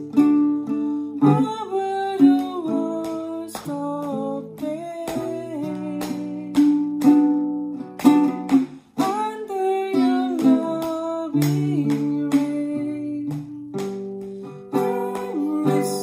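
Nylon-string classical guitar strummed in a steady rhythm while a woman sings a song along with it.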